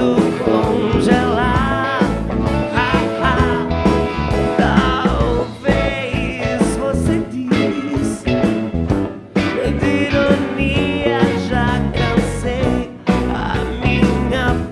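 Psychedelic rock song with electric guitar, bass and drums under a singing voice.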